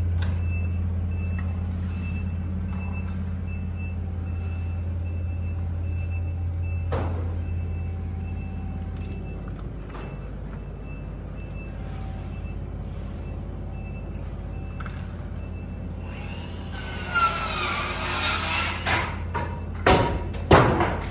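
A motor vehicle's engine running steadily, with a high beeping alarm repeating at an even pace. Near the end, a loud scraping slide with wavering pitch, followed by a few sharp knocks.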